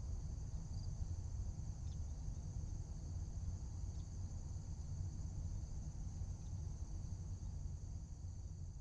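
Crickets trilling steadily over a low, even rumble of outdoor background noise, with a few faint ticks scattered through.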